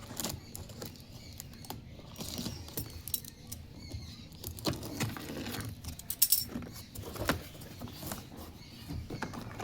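Small hard plastic toy pieces clicking and clattering as they are handled, with short bursts of rustling. The loudest run of clicks comes about two-thirds of the way through.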